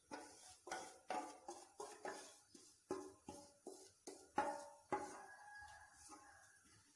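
Wooden spatula scraping and knocking against a steel bowl and pan rim while gram-flour batter is scraped into the pan: a quick, irregular series of short ringing metal clinks, loudest about four and a half and five seconds in.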